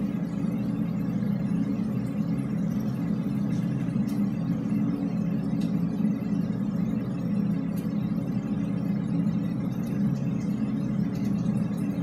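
Steady low drone of background noise inside a drainpipe, with a few faint ticks and no air horn blast standing out above it.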